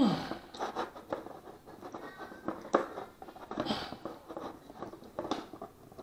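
Plastic zip tie being threaded through a quadcopter frame and worked by hand: irregular scratching and light clicks, with a louder knock right at the start.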